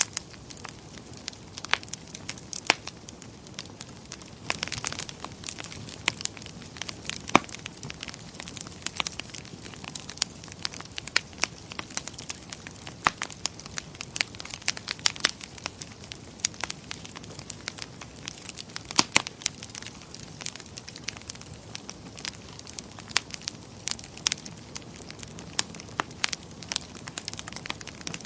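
Wood fire in a fireplace crackling, with a steady hiss and frequent sharp, irregular pops.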